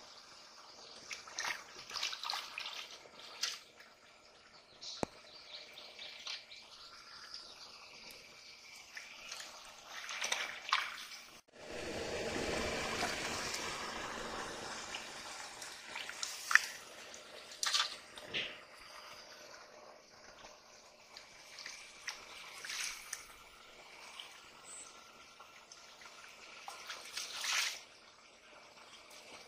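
Shallow muddy water sloshing and splashing as hands grope through it, with scattered drips and trickles. A louder, continuous stretch of sloshing starts suddenly near the middle and lasts a few seconds.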